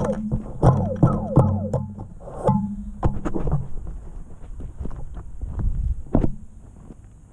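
Music with sharp hits, steady low tones and falling pitch slides, fading down near the end.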